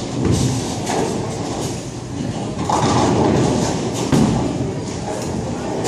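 Bowling alley din: a steady rumble of bowling balls rolling down the wooden lanes, with scattered knocks and clatter. A sharper thud about four seconds in as a ball is released onto the lane.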